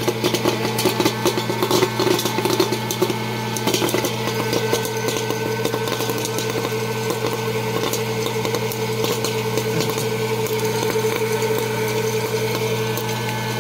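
Hot-air popcorn popper running with a steady motor and fan hum, kernels popping and landing in a metal bowl. The pops are thick for the first few seconds and then thin out.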